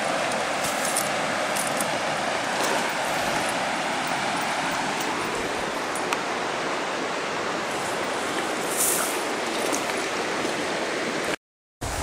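Steady rushing of river water over rapids, with a few faint clicks and small splashes. The sound drops out abruptly for about half a second near the end.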